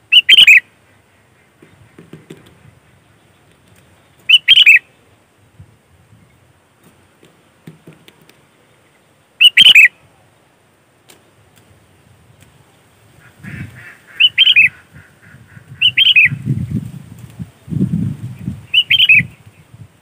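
Sooty-headed bulbul giving six short, loud calls, each about half a second long and spaced a few seconds apart. In the second half, low thuds and rumbles come between the calls.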